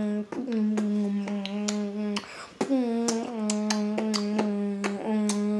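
Vocal beatboxing: a hummed low note held and stepped in pitch, with sharp clicks about three times a second on top and a short break for breath a little over two seconds in.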